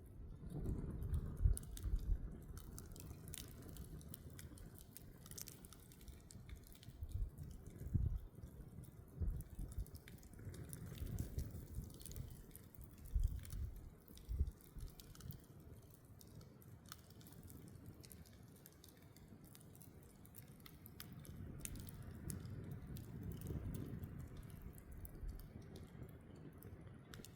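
Wood campfire crackling, with many small sharp snaps scattered irregularly throughout. Strong wind gusts buffet the microphone as low rumbles that swell and fade.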